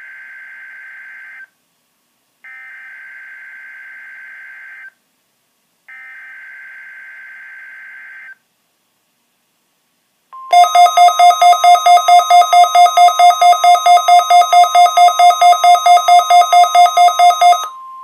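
NOAA Weather Radio Required Weekly Test on a Midland WR-120 weather radio. It opens with three blasts of the buzzy SAME digital header tones. About ten seconds in, a steady warning tone starts, joined by the radio's own loud alert beeping at about four beeps a second, which stops near the end while the steady tone goes on.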